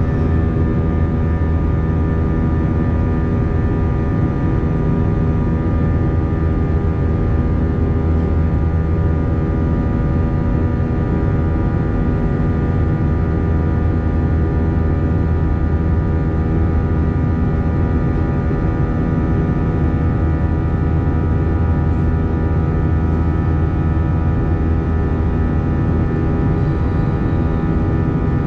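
Steady jet engine and airflow drone heard inside an Airbus A321 passenger cabin, a constant rumble with several fixed engine tones humming over it.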